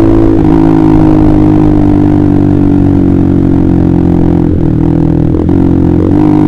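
Honda CBR150R's single-cylinder engine through a KJ Pro aftermarket exhaust, running at steady revs while riding, with a few brief dips in the note near the end.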